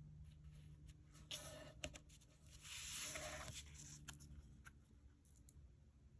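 Faint handling sounds: a few small clicks and taps, and a brief rustle about three seconds in, over a steady low hum.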